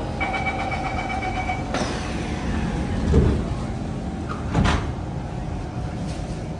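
Kawasaki C151 train's rapid door-closing warning beeps, then its sliding passenger doors shutting with a loud thud about three seconds in and a second thud a second and a half later, over the steady low hum of the train.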